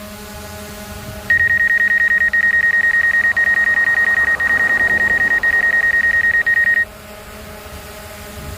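A high-pitched electronic beep held for about five and a half seconds, starting a second in, with a fast flutter. Under it is the faint steady hum of the DJI Air 2 drone's propellers.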